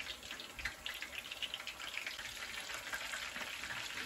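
Fish deep-frying in a pot of hot grease at about 300°F inside a wire strainer basket: a steady sizzle with fine crackling.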